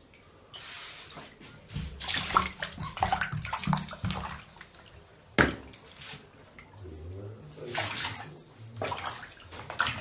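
Water splashing and sloshing in irregular bursts, with one sharp knock about five seconds in.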